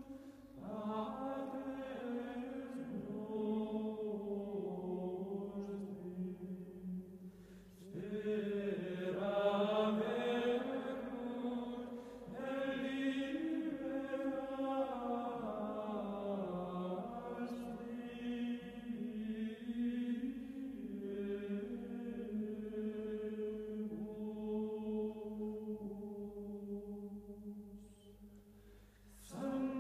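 Slow vocal chant sung in long held notes, phrase by phrase, with short breaks about eight seconds in, again around twelve seconds, and near the end.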